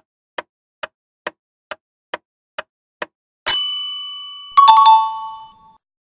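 Quiz-game countdown sound effect: an even tick a little over twice a second that stops about three seconds in, then a bright bell ding that rings out, and about a second later a few quick clicks with a lower two-note chime. The chimes are the answer-reveal sound, marking the correct answer as time runs out.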